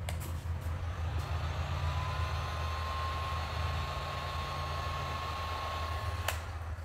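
Heat gun blowing hot air over freshly poured epoxy resin to bring out cells: a steady rush of air with a motor whine that rises slightly about two seconds in, then stops with a click near the end.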